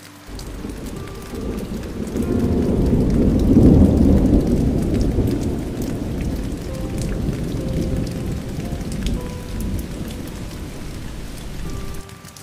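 A long roll of thunder over steady rain. The rumble builds to its loudest about four seconds in, fades slowly, and cuts off abruptly near the end.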